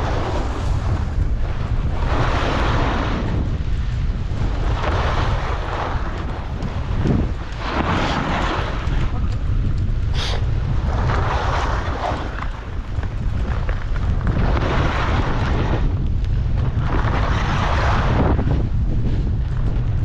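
Skis scraping and hissing over the snow in a turn every two to three seconds, over a steady rumble of wind on the microphone.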